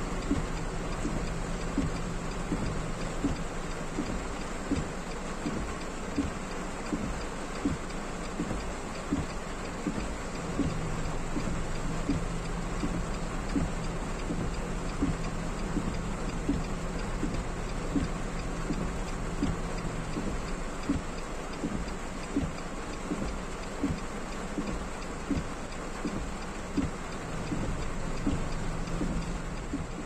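Heavy rain on a car, heard from inside the cabin as a steady hiss, with a soft regular knock a little more often than once a second.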